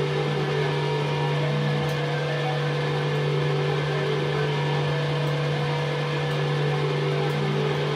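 Experimental drone music: a steady low hum with a few held higher tones over an even hiss, unchanging throughout.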